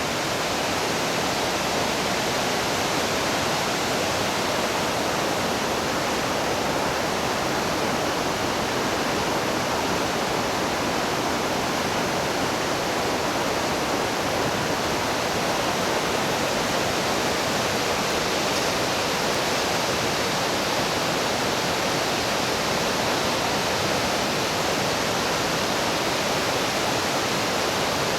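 A creek running downhill over rocks, a steady rushing of water.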